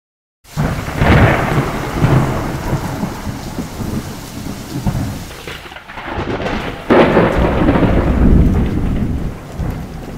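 Thunderstorm: steady heavy rain with rolling thunder, which swells loudly about a second in and again about seven seconds in.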